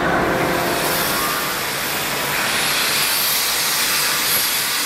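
Handheld electric angle grinder running, its abrasive disc grinding the centre of a steel disc harrow blade with a steady hiss.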